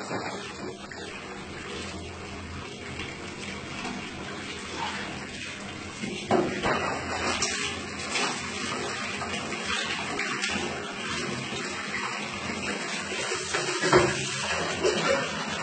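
Tap water running and splashing as a cat is washed under it, louder and splashier from about six seconds in.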